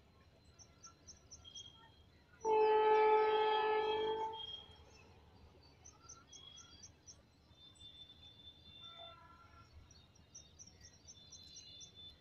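Train horn sounding one steady blast of about two seconds, a chord of several tones, starting sharply and fading out. Birds chirp in short runs of quick, high chirps before and after it.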